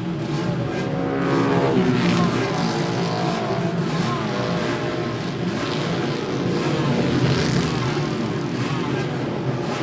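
Motorcycle engine at racing speed, revving up in pitch and dropping back, with several further rises and falls as it accelerates and shifts.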